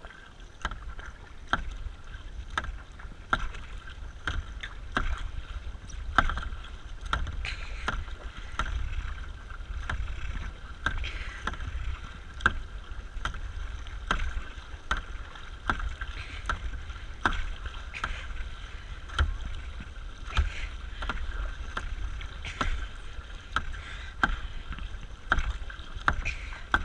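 Kayak paddling: a double-bladed paddle stroking steadily on alternate sides of a plastic sit-in kayak, giving a short sharp sound with each stroke a little more than once a second, over a low steady rumble of water moving along the hull.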